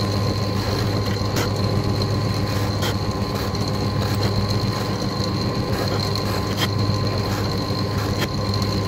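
Electric drill running steadily with a 3.5 mm bit, a constant motor hum with a high whine, as it drills down to a depth stop into a rosewood guitar bridge blank. A few light clicks as the bit cuts.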